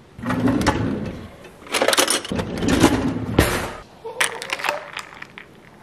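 Ice cubes clinking and rattling against a glass jar as an iced coffee is stirred with a straw, in two spells of quick clinks.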